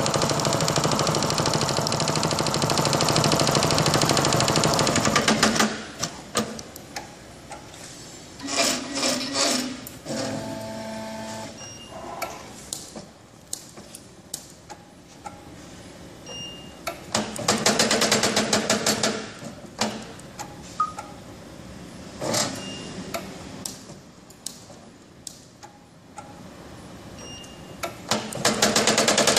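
Spangle film motif machine for non-hole hot-melt spangles running with a fast, even mechanical rhythm in stops and starts: one long run that stops about five seconds in, shorter runs around nine, eighteen and twenty-three seconds in, and a restart near the end, with scattered clicks in the quieter gaps.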